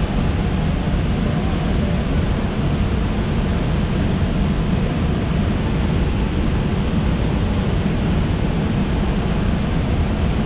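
Large waterfall: a loud, steady rush of falling water, heaviest in the low end.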